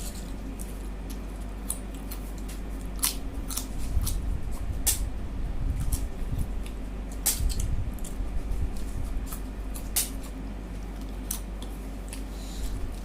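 Eating sounds: a mouth chewing curry and rice, with sharp, wet clicks and smacks at irregular intervals.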